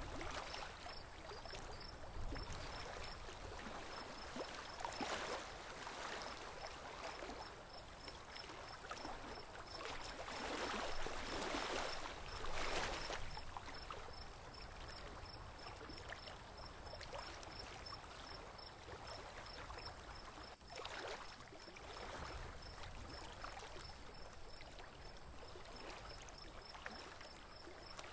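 Water lapping and splashing around a small boat under way, swelling louder a few times. A faint, high, evenly repeating ticking runs underneath.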